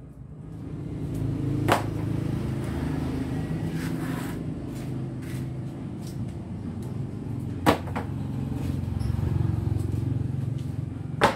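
Motorcycle tyres being handled and stacked, with three sharp knocks spread through, over a steady low rumble of vehicle traffic.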